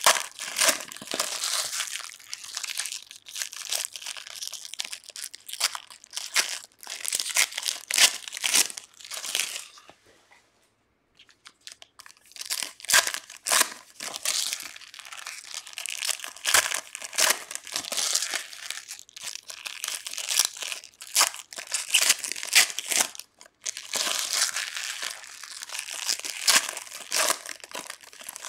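Foil wrappers of Panini Chronicles soccer card packs crinkling and tearing as the packs are ripped open and handled, a dense crackle that stops for about two seconds around ten seconds in and then carries on.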